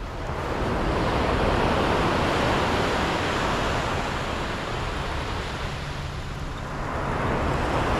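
Sea surf breaking on a beach: a wave washes in about half a second in, eases off, and another swells in near the end.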